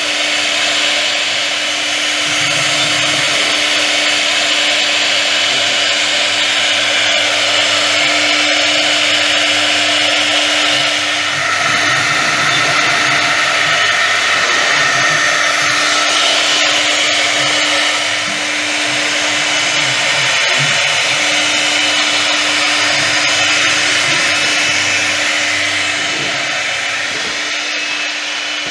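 DIRTEC 2141S2 CNC router's spindle running at speed while milling PVC sheet: a steady whine over continuous cutting hiss, which dips briefly a few times.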